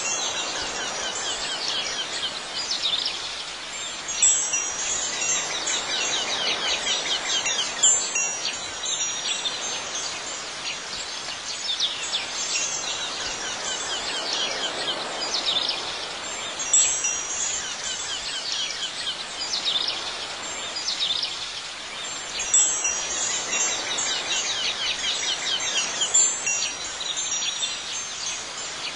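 Wind chimes tinkling in clusters every few seconds over a steady background hiss.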